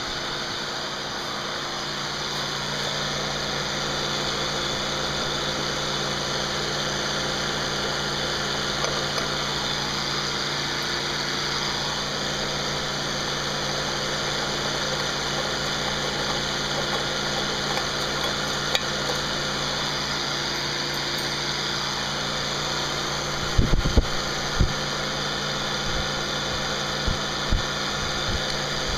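A steady mechanical hum holding several fixed tones at a constant level, with a short cluster of sharp knocks about three-quarters of the way through and a few more single knocks near the end.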